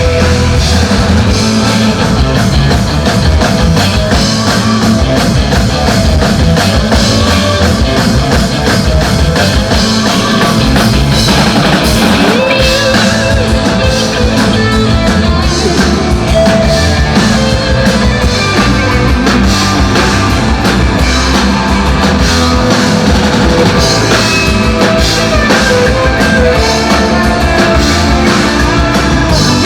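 Rock band playing live and loud: drum kit, electric guitar and bass going continuously through a song.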